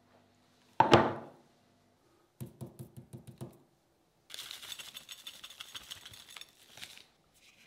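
A plate set down on a wooden table with a loud knock and a short ring. Then about six light knocks in quick succession, and dry seasoning shaken from paper sachets, pattering with a crackling hiss onto a raw chicken for nearly three seconds.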